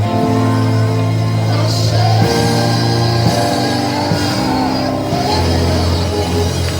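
Live church music with long held bass notes and chords, the chords changing about two seconds and again about five seconds in.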